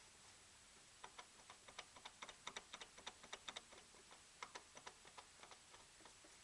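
Rapid, irregular clicking knocks from a Subaru Legacy BH5 drive shaft's inner CV joint, about five a second, starting about a second in and fading near the end: the knock of a worn inner joint with play in it.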